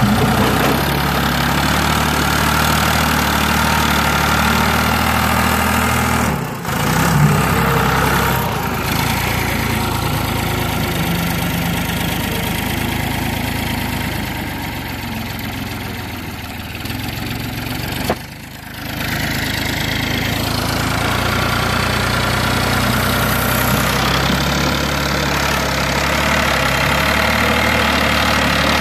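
Ford 445D skip loader tractor's diesel engine running steadily under light load. The sound breaks off abruptly and resumes twice, about a quarter and two-thirds of the way through.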